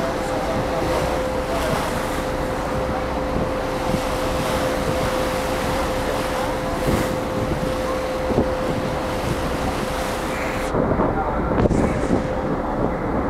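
Wind buffeting the microphone on the open deck of a moving harbour ferry, over the ferry's steady engine hum and rushing water. About eleven seconds in the wind noise drops away suddenly, leaving the hum and water noise.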